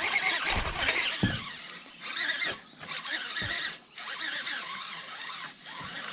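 Fishing reel cranked fast to bring in a hooked small bass: a high, chattering whirr that stops for a moment three times, with a few low knocks.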